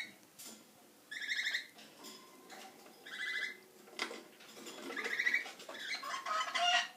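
Small pet parrots chirping: short, high chirps every couple of seconds, becoming a busier warbling chatter near the end.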